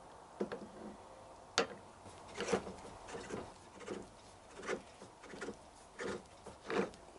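Motorcycle fork tube being twisted and worked up through its yoke clamp by hand: a run of short knocks and rubbing, roughly one every 0.7 s.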